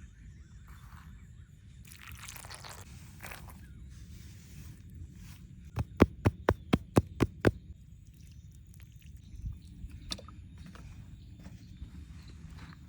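A quick run of about eight sharp knocks, roughly five a second, lasting about a second and a half. Before it there is rustling and scraping, and two fainter knocks follow later.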